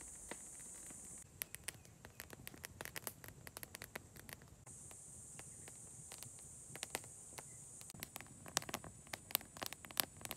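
Wood campfire of dry sticks crackling, with irregular sharp pops and snaps that come thicker and louder in the second half. A steady high insect buzz sits behind it, breaking off for a few seconds near the start.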